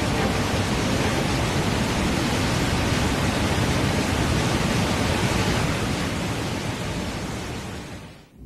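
Waterfall rushing: a steady, even noise with no tone in it, which fades over the last two seconds and drops away just before the end.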